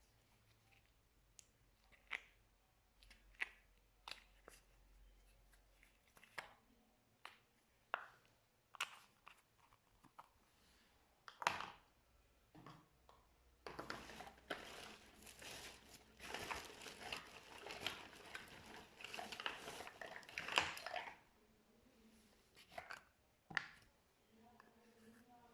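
Slime being worked by hand: scattered sticky pops and clicks, then about seven seconds of continuous wet crackling and squishing from about halfway in, then a few more pops.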